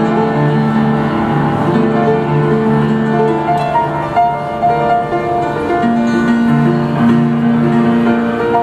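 Upright piano played with both hands: long low notes held under a higher melody line.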